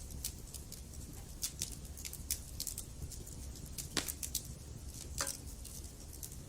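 Wood fire burning in a fireplace: irregular crackles and pops over a low steady rumble, with the sharpest pops about four seconds in and again just after five seconds.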